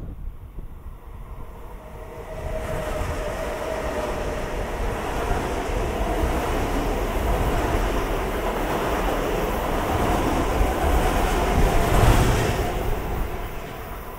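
Long Island Rail Road commuter train passing through a station: a steady rumble of wheels on rail that builds about two seconds in, is loudest near the end and then falls away as the train leaves.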